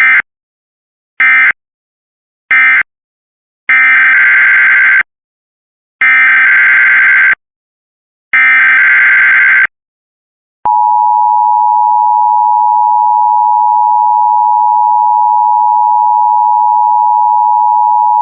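Emergency Alert System test tones. Three short screeching data bursts end one alert, then three longer bursts of about a second and a half each carry the next alert's header, then about ten seconds in the two-tone attention signal starts: a loud, steady dual tone near 1 kHz.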